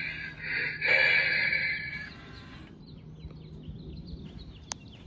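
A 2011 Spirit Halloween Twilight Twitcher zombie animatronic plays a groaning zombie sound effect through its built-in speaker for about two seconds, then goes quiet. Faint bird chirps follow, with a single sharp click near the end.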